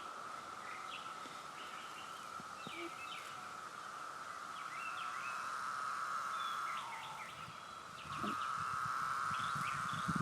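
Chorus of periodical 17-year cicadas, a steady high drone that swells, sags with a falling pitch about seven seconds in, then comes back louder a second later. Short bird chirps sound over it.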